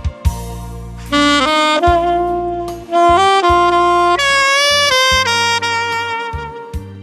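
Saxophone playing a slow melody of long held notes over a backing track with bass and drums. It comes in about a second in and plays one long note with vibrato around the middle.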